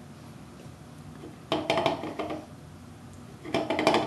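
Aluminium drink can clinking and rattling in two short bursts, about a second and a half in and again near the end, as a string 'fishing line' is jiggled in its opening and the can is handled.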